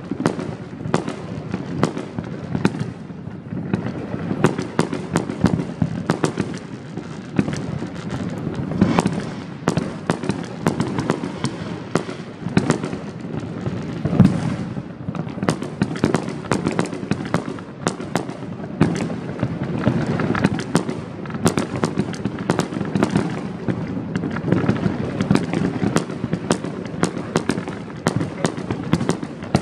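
Fireworks going off without a break: a continuous din of many overlapping bangs and crackles, with one louder bang about fourteen seconds in.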